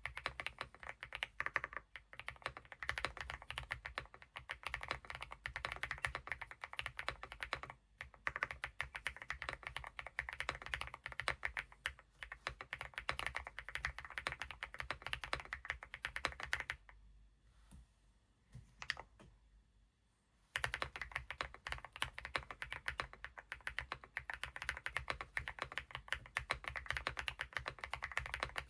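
Fast, continuous typing on a Weikav Lucky65 V3 mechanical keyboard with HMX Dirty Pink linear switches: a dense run of keystrokes that breaks off for about three seconds a little past halfway, with only a couple of single keypresses, then resumes.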